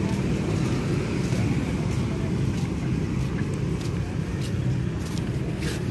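Steady low rumble of city street ambience with distant traffic, with a few light clicks near the end.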